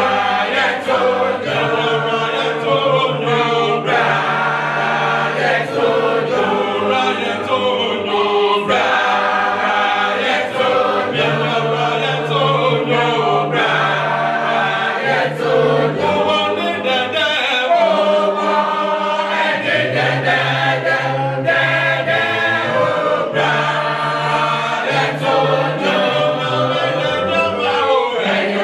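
A choir singing a hymn a cappella in several parts, with a low line held under the melody.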